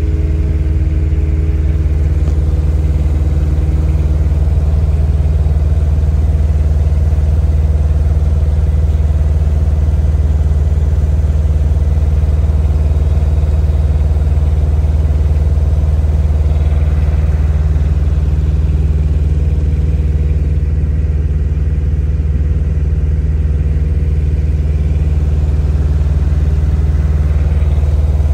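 River cable ferry's engine running with a steady low drone during the crossing.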